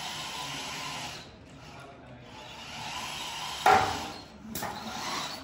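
Competition robot's small electric drive motors whining steadily as it drives under a programmed routine, easing off about a second in and picking up again, with a loud clack about three and a half seconds in and a smaller knock shortly after.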